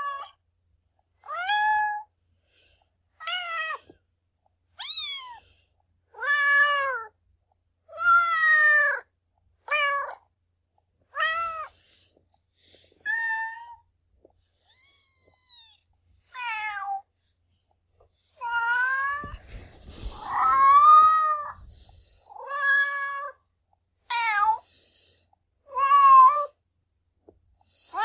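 Domestic cat meowing: a string of about fifteen separate short meows of varied pitch with short pauses between them, and a longer, louder drawn-out meow about twenty seconds in.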